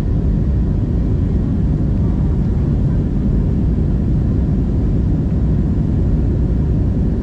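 Steady low rumble of an Airbus A321neo's jet engines, heard inside the cabin.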